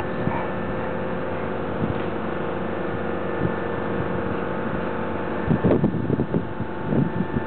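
A steady mechanical hum with faint steady tones. About five and a half seconds in, a short run of irregular knocks and splashes.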